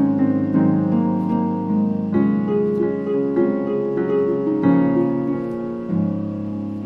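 Instrumental background music of plucked, harp-like notes and piano, with the chord changing every second or so.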